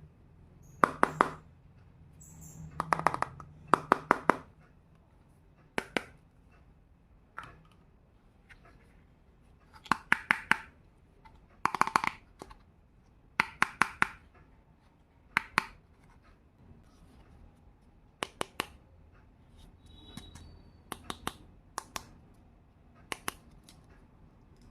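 Small miniature toy kitchen pieces clicking and tapping as they are handled, in quick clusters of two to five sharp clicks every second or two.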